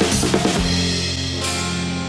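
Background rock music: a quick drum fill in the first half-second, then a held guitar chord with another drum hit near the end.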